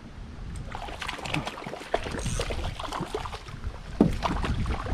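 Water splashing and small knocks against a kayak hull as the kayak moves through the water, with wind rumbling on the microphone. A sharper knock comes about four seconds in.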